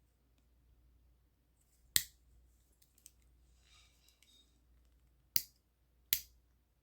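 Three sharp clicks of a Victorinox Super Tinker's tools snapping shut against their backsprings, one about two seconds in and two close together near the end, with faint small ticks between.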